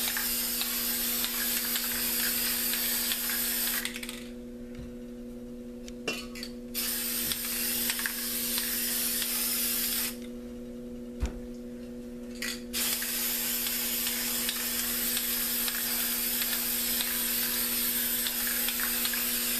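Aerosol spray paint can spraying onto a canvas in three long hissing bursts, with two pauses of about two to three seconds between them, the first about four seconds in. Light clicks from the can being handled come during the pauses.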